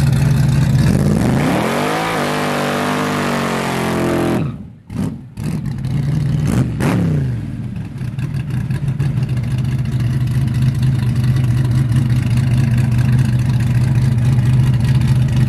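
Hot rod's engine revving up hard and back down during a burnout, with tyre-spin noise while the revs are high. The sound briefly drops out near the middle, a falling rev follows, and the engine then runs steadily and loud.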